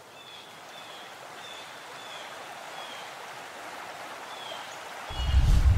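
Steady rushing water of a waterfall, with faint short high chirps now and then. A deep low rumble swells in about five seconds in.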